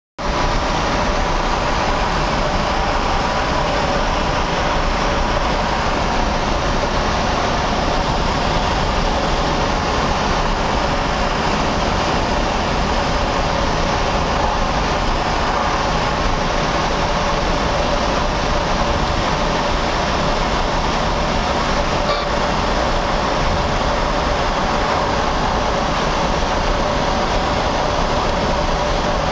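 Steady road noise of a Nissan Altima driving at speed through a highway tunnel, heard from inside the car. The tyres and engine make a constant roar with a faint steady hum in it.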